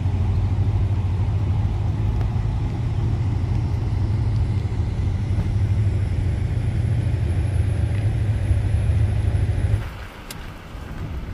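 Steady low rumble of engine and tyre road noise heard from inside a moving camper van, dropping noticeably quieter for the last second or so.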